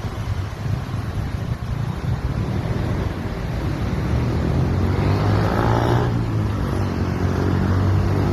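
A motor engine running steadily, growing louder about halfway through as it comes closer, over a steady rumble.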